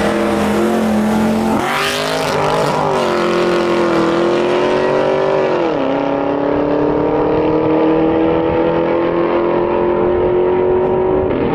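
Two V8 muscle cars, a Chevrolet Camaro SS and a Dodge Scat Pack with its 392 Hemi, accelerating hard in a street race. The engine note surges about a second and a half in, then climbs steadily and drops suddenly at each upshift, about six seconds in and again near the end.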